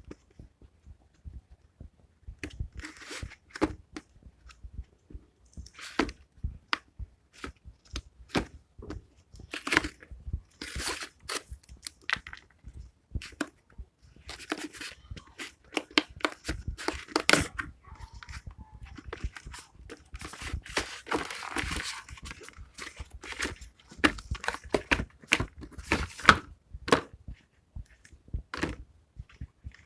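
Paper packaging of a debit card mailer being torn open and handled: irregular tearing, crinkling and small taps and clicks.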